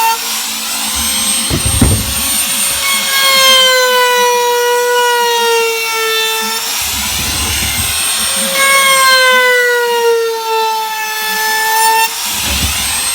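Car sound system playing loud electronic music: a sustained horn-like synth tone sliding slowly downward in two long phrases, with deep bass hits between them.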